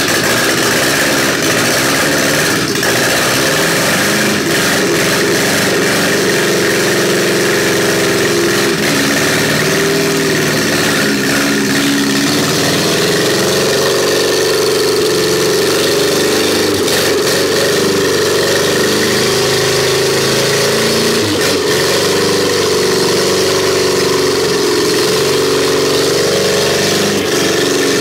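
Carburetted car engine running on a workshop test stand during its test run, at a steady idle, its speed shifting a little now and then as the throttle is worked.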